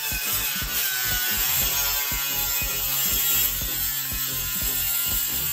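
Cordless angle grinder cutting into a plastic kayak hull, its whine wavering in pitch as the disc bites.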